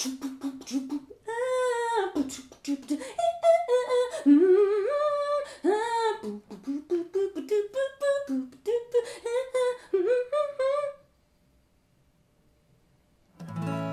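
Unaccompanied wordless vocalizing: a woman's voice runs through quick, bending melodic syllables in a scat- or beatbox-like run that stops about eleven seconds in. After a couple of seconds of silence, an acoustic guitar chord is strummed and rings near the end.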